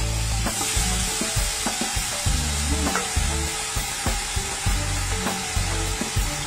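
Kitchen cooking sounds: a steady sizzling hiss with scattered light clicks and knocks of a utensil, over background music with low stepped notes.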